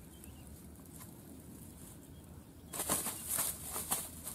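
A burst of rustling and crackling in dry grass and a fishing net as they are handled, starting about two and a half seconds in and lasting a second and a half.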